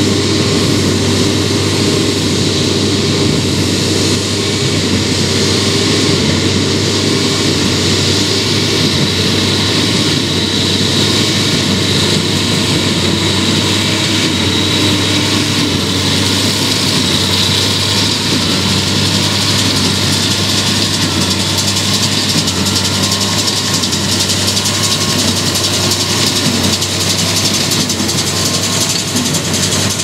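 New Holland T7.210 tractor running steadily under load as it pulls a Massey Ferguson 186 small square baler that is working, baling straw.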